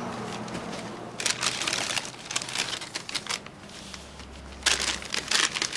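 Tissue paper crinkling and rustling as a watch is unwrapped by hand, in two spells: from about a second in, and again near the end.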